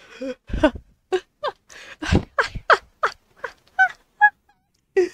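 Dog yipping in a run of short, pitched cries, about three a second, with breathy sounds between them; the cries stop a little after four seconds in.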